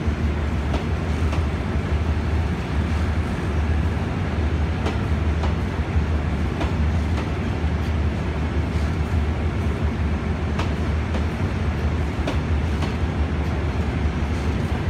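Eastern & Oriental Express passenger carriages rolling slowly past: a steady low rumble of the moving train, with occasional light clicks.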